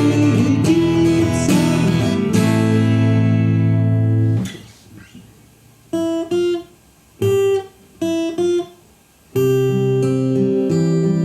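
Fender CD-60 steel-string acoustic guitar, amplified through a magnetic pickup plus microphone and an active speaker, strummed in sustained chords. The strumming stops about four seconds in, a few short plucked notes follow in quick pairs, and chords resume near the end.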